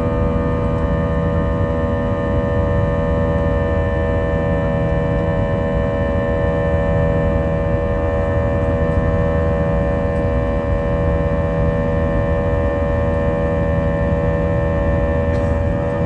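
Jet engines of an Airbus A321-231, IAE V2500s, heard inside the cabin: a steady drone with several fixed humming tones over a low rumble.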